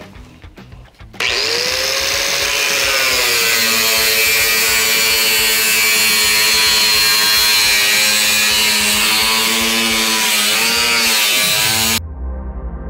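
Angle grinder with a cut-off wheel cutting through the steel outer shell of a water heater, throwing sparks. It spins up about a second in and runs with a steady whine whose pitch dips as the wheel bites, then stops abruptly near the end, when music takes over.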